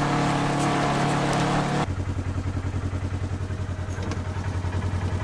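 Polaris RZR side-by-side engine running: a steady higher engine note for about two seconds, then it suddenly drops to a lower, pulsing note.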